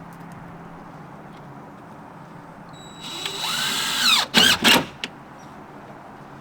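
A power drill spinning up about three seconds in, running for about a second, then three short loud bursts before it stops.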